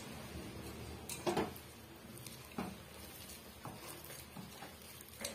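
A hand mixing thick urad dal vada batter with chopped onions in a steel pot: quiet squelching with a few soft strokes, the clearest about a second in and near the middle.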